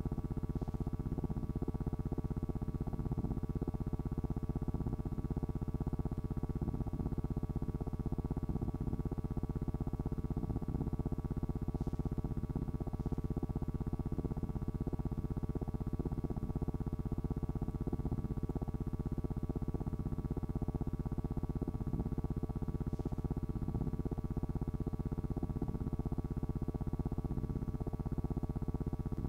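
A steady, unchanging low buzzing hum with a few fixed tones in it. It has no rhythm or events.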